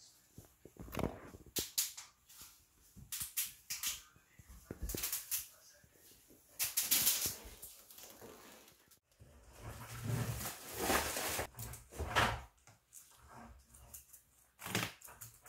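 Irregular clicks, knocks and rustling as objects are handled on a desk.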